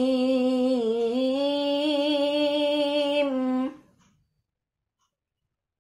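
A young woman's melodic Quran recitation (tilawah), with one long, slightly wavering note drawn out on the verse ending "al-'alim". The voice stops abruptly about three and a half seconds in, and near silence follows.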